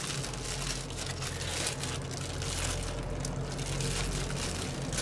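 Plastic freezer bag crinkling as frozen chopped herbs are squeezed and crumbled out of it by hand, with irregular crackles over a low steady hum.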